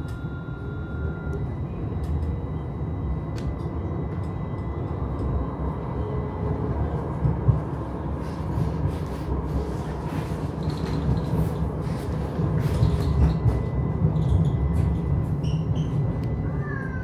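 Interior running noise of a Pesa Twist 147N low-floor tram in motion: a steady low rumble from the wheels and running gear with a faint steady high tone over it. There are scattered knocks and rattles through the middle. Near the end a wavering, wailing tone comes in.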